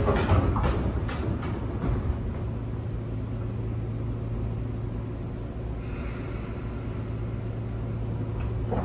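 Inside a Sotetsu 8000 series train car: a steady low hum over an even rumble, with a few clicks in the first couple of seconds and a faint hiss building near the end.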